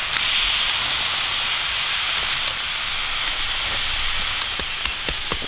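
Fire-heated stone searing the fat of short beef ribs: a steady sizzling hiss, with scattered crackling pops near the end.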